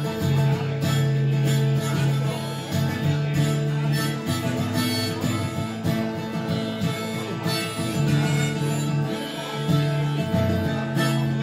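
Acoustic guitar strummed in a steady rhythm, with a harmonica on a neck rack playing sustained notes over it.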